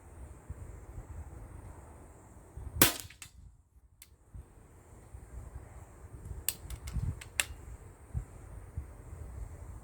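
A Steyr LG110 precharged air rifle fires once about three seconds in: a single sharp crack. A few lighter clicks follow later, and wind rumbles on the microphone throughout.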